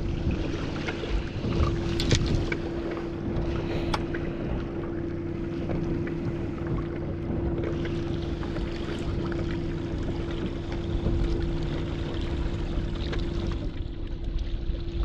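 A 115 hp outboard motor running steadily at low speed with a steady hum that drops out near the end, under wind on the microphone and water against the hull. A few light clicks of terminal tackle being handled come in the first few seconds.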